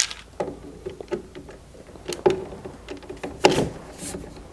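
A power screwdriver gives several short whirring bursts, with clicks and knocks between them, as it drives the mounting screws of a gas furnace's draft inducer motor.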